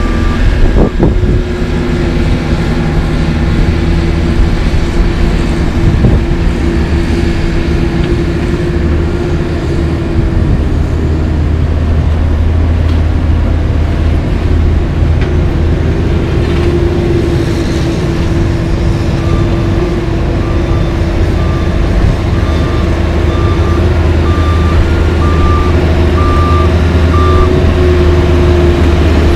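Caterpillar 140H motor grader's diesel engine running steadily under load as it blades gravel sub base close by. A backup alarm beeps steadily through the last third, with a brief beep at the very start.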